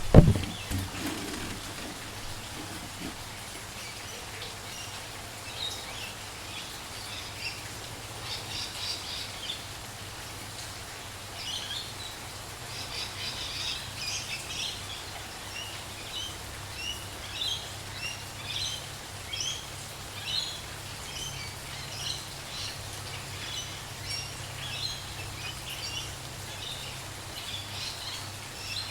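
Many small birds chirping in short, quick calls over a steady hiss of light rain, the chirping growing busier from about five seconds in. A brief loud thump right at the start.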